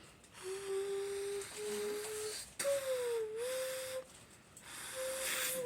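A person's vocal imitation of a Toyota Supra Mark IV engine: hummed engine notes held for about a second at a time, with a dip and rise in pitch about halfway through, broken by short breaths.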